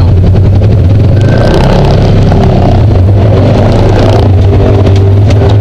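Off-road vehicle engine running loud and steady under throttle on a dirt trail, a constant low drone picked up from the vehicle itself.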